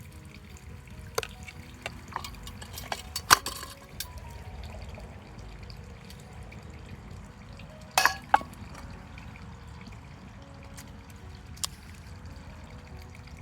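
A few sharp clinks and knocks, clustered in the first four seconds and again as a pair about eight seconds in, over a steady low hiss and faint background music.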